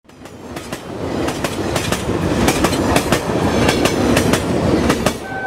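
A passing train as a sound effect: rumbling, swelling in over the first second, with irregular clattering clacks of wheels over rail joints. A steady horn tone starts shortly before the end.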